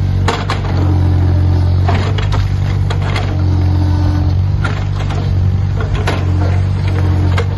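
Takeuchi mini excavator's diesel engine running steadily under load while its bucket breaks up a masonry wall, with repeated knocks and cracks of masonry and debris falling. A steady higher whine comes and goes several times.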